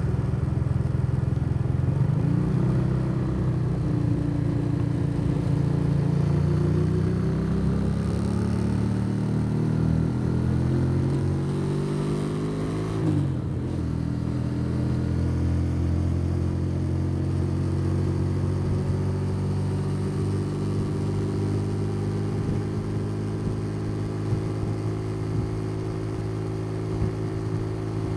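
Motorcycle engine heard from the bike while riding. Its pitch climbs steadily for about ten seconds as it accelerates, drops sharply about halfway through, then holds a steady cruise that rises only slowly.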